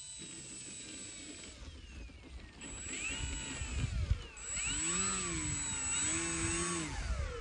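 Electric motor and propeller of an E-flite Maule M-7 1.5 m RC plane whining as it taxis on grass, the pitch rising and falling several times with the throttle and louder in the second half.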